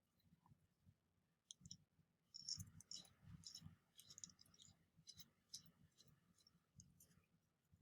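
Faint clicks and light scraping of small metal pistol parts and tools being handled, a cluster of them about two and a half seconds in, then scattered clicks.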